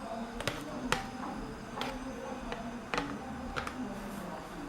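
Plastic back cover of a Samsung Galaxy Tab 3 tablet being pressed on, its clips snapping into place in about five sharp, irregular clicks.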